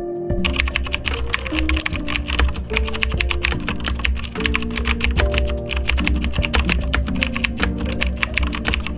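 Lo-fi background music: soft held notes over a low bass, with a fast, dense patter of fine clicks over it.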